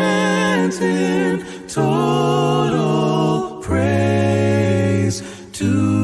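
Unaccompanied gospel singing in harmony: several voices hold sustained chords in phrases of one to two seconds, with short breaks between them.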